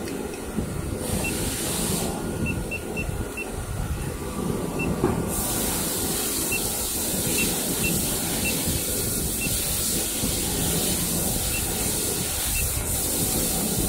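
Steady machine noise with a hiss that grows louder about five seconds in, over which come short, faint beeps at irregular intervals as keys on an injection molding machine's control panel are pressed.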